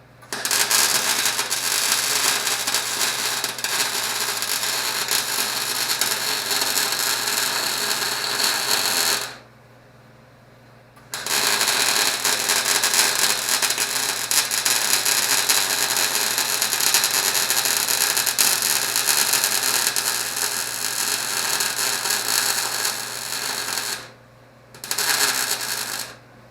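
MIG welder arc crackling while welding steel body panels, in three runs: a long one of about nine seconds, a longer one of about thirteen seconds, and a short burst near the end, each starting and stopping abruptly.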